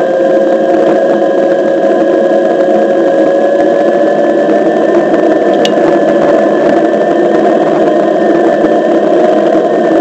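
Onewheel XR electric board riding along: a steady whine from its hub motor over a loud rumble of the tyre rolling on asphalt, the whine creeping slightly higher in pitch as it gathers speed. A single sharp click about halfway through.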